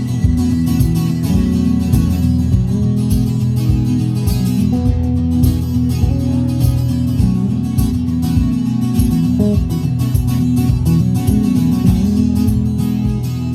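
Guitar-led music with a steady beat, a low thump about twice a second.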